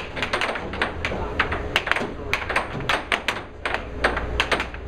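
Air hockey puck clacking against the plastic mallets and the table's rails in a rapid, irregular run of sharp clicks, several a second.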